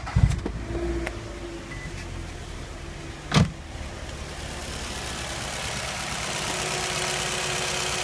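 A 2004–2005 Nissan Altima's four-cylinder engine starts right at the beginning and settles into a steady idle, running after the fallen intake O-ring behind its vacuum leak has been replaced. A single sharp thump comes a little over three seconds in, and the engine sound grows louder over the last few seconds.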